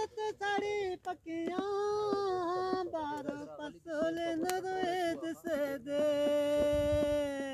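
A voice singing a wordless, drawn-out melodic line with wavering notes, ending on one long held note. Under it, hand slaps on an upturned plastic pot used as a drum keep a beat.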